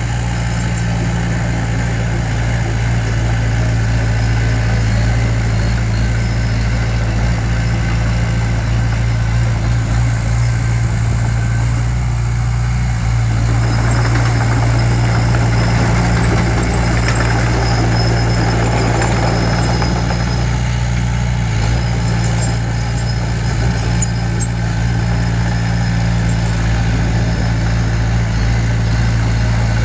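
Diesel engine of heavy construction equipment running steadily at a constant speed, with a harsher, noisier stretch about halfway through.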